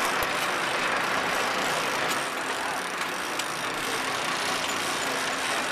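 Fishing boat's engine running steadily under a steady hiss.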